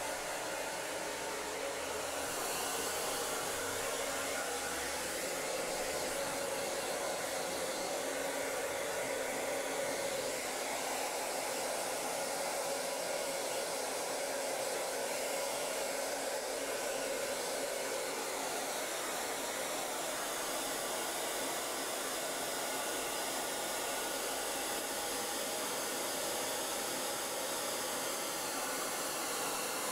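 Handheld hair dryer running steadily, blowing into a wet dog's fur, its tone shifting a little as it is moved over the coat.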